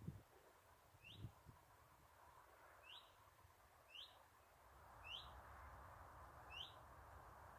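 A bird repeating one faint, short, upward-sliding whistle, the same note every one to two seconds: the monotonous whistle of an unidentified small bird.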